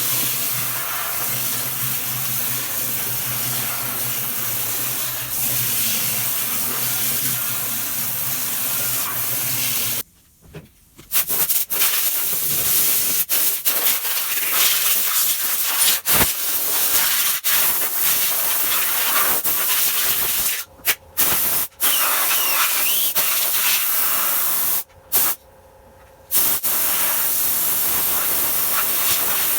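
Water spraying hard, a steady hiss, with a low hum under it for the first ten seconds. The spray breaks off suddenly a few times, briefly around the middle and again near the end.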